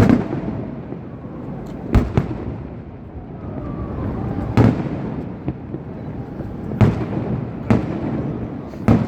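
Fireworks display going off: six loud bangs, one to two seconds apart, over a continuous rumble between them.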